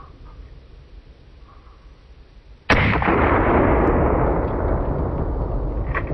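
A single 12 gauge slug fired from a Mossberg 500 pump-action shotgun: a sudden loud blast about two and a half seconds in, followed by a long, slowly fading rumble.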